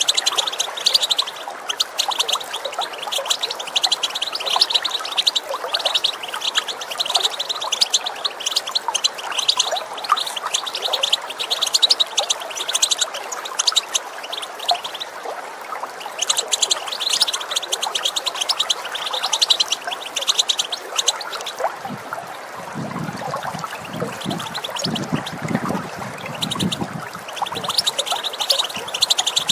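European goldfinch giving its rapid twittering call in long bursts over the steady sound of running water. The twittering breaks off briefly about halfway and again for several seconds near the end, when a lower gurgling of water comes up.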